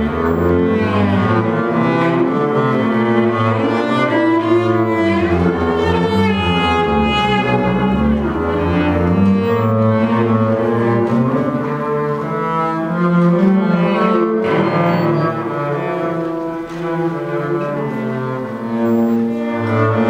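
Music played on cello and other low bowed strings, slow held notes that change pitch in a melodic line.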